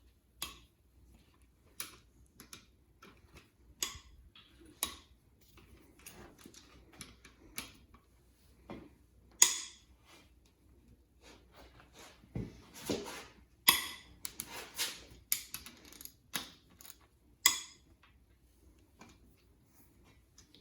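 Metal hand tools working on the connecting-rod cap bolts of a 4.6L DOHC V8 block: scattered clicks and clinks, with three louder ringing clanks about halfway through and near the end.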